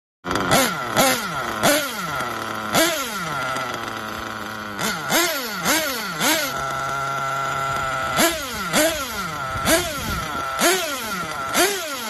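Nitro glow engine of a 1/8-scale RC buggy idling at high pitch and blipped about a dozen times, each rev a quick jump in pitch that falls back to idle. It holds a steady idle for a second or so in the middle.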